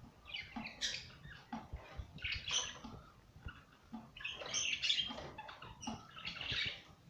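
Budgerigar chicks chirping and squawking as they feed, in about four short, raspy bouts with pauses between them.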